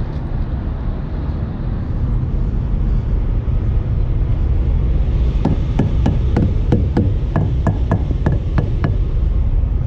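Brisk footsteps on concrete, sharp taps about three a second, starting about halfway through, over a steady low rumble.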